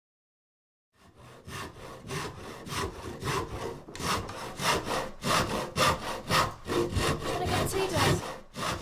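Hand saw cutting wood in a run of quick back-and-forth strokes, starting about a second in and getting louder.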